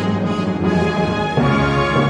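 Instrumental theme-style background music with sustained chords that change about one and a half seconds in.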